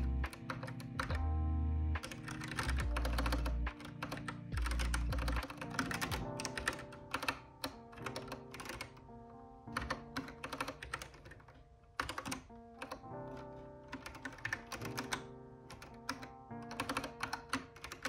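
Keystrokes on a Kinesis Advantage 360 Pro split, contoured keyboard: fast bursts of clicking with short pauses between them, over lo-fi background music with a bass line that is heavy in the first few seconds.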